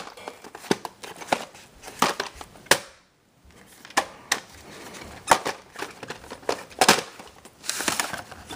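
Handling noise: a run of sharp clicks and knocks mixed with crinkling, broken by a moment of silence about three seconds in.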